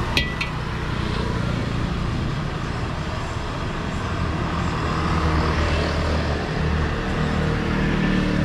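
A metal ladle clanks twice against a steel wok, then a gas wok burner runs with a steady rush, its flame uncovered with the wok lifted off.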